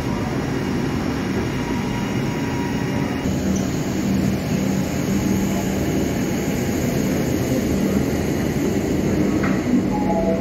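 Electric suburban trains standing at a station platform: a steady hum and running noise from the trains' equipment. A higher steady tone stops about three seconds in, and a short chime of falling notes begins near the end.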